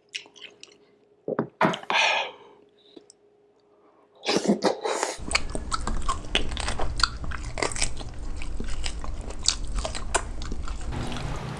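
Close-miked chewing and biting of bulalo (beef shank soup): sharp wet clicks of the mouth and food, sparse at first, then dense and fast from about four seconds in, over a steady low hum that starts shortly after.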